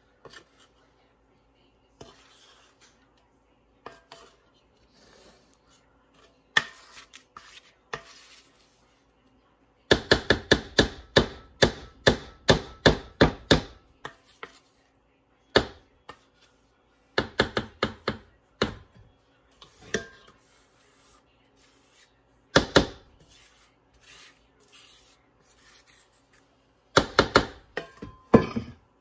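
A cake pan full of pound cake batter banged down on a countertop over and over to settle the batter: a few softer knocks, then a fast run of about four knocks a second for several seconds, then scattered single knocks and short clusters.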